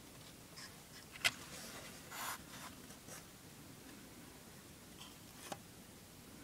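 A sharp click about a second in, a short rub a second later and another click near the end, with a few small ticks, over faint room hiss: light handling noises.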